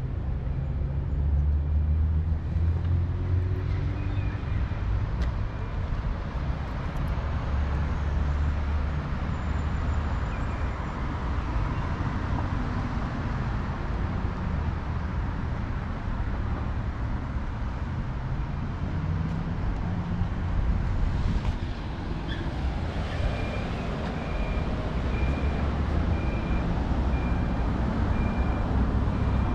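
Steady road traffic on a busy multi-lane city street: cars passing with engines running. In the last several seconds a short, high beep repeats evenly, about one and a half times a second, from a pedestrian crossing signal.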